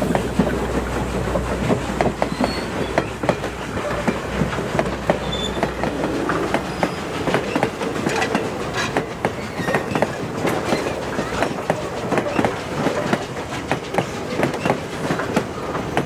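A train of passenger coaches rolling past close by, the wheels clicking steadily over the rail joints over a continuous rumble. The low rumble is heaviest in the first few seconds and then eases.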